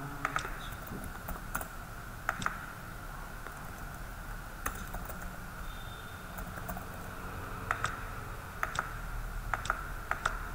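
Computer keyboard typing and mouse clicks: scattered, irregular keystrokes, some single and some in quick little runs, over a steady faint background hum.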